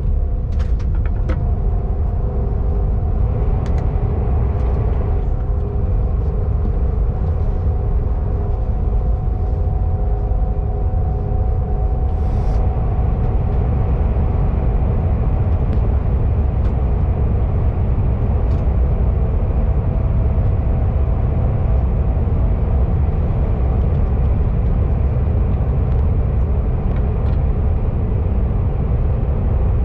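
KTX high-speed train heard from inside the passenger carriage while running: a steady, loud low rumble with a faint steady hum above it. There are a few faint clicks in the first couple of seconds.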